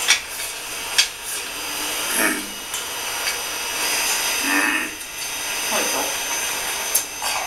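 Cutlery scraping and clinking on a plate as a diner eats, with a few sharp clicks, one about a second in and one near the end, over a steady hiss.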